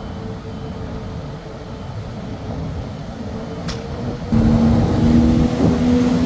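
Steady low engine rumble with a steady hum. A single click comes a little before the four-second mark; just after it the sound suddenly gets louder, with a deeper engine hum.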